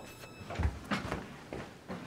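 Unprocessed on-set film sound between lines of dialogue. A faint high whine, which the speakers put down to the actors' light-up suits, dies away within the first half second. A low thump comes about half a second in, followed by a few soft knocks and rustles over background hiss.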